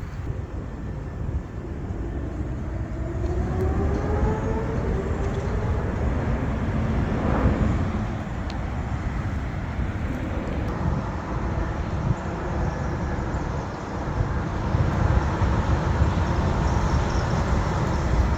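A passing engine over a steady low outdoor rumble: its pitch glides, and it is loudest about seven seconds in.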